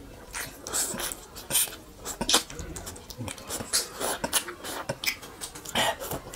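A person eating a halved orange: wet sucking and slurping at the fruit's flesh and juice in short, irregular bursts.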